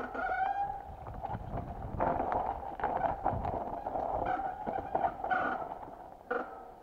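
Mountain bike disc brakes squealing with a steady howling tone while braking down a rocky descent, over the rattle and clatter of the bike on rocks. The front brake pad is glazed and grips poorly.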